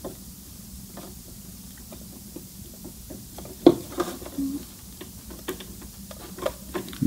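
Light clicks and taps of fingers working at the needle clamp and presser foot of a sewing machine jammed with knotted thread, with one sharper click nearly four seconds in.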